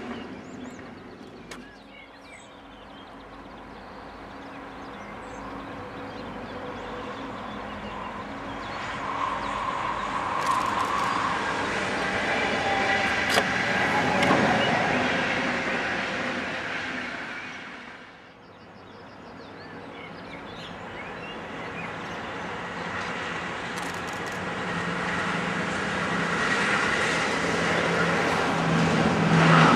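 Two trains rolling past one after the other: first an Intercity passenger train, swelling to its loudest about halfway and then fading quickly, then a long freight train of tank wagons, growing steadily louder with a steady low hum until it is loudest at the end.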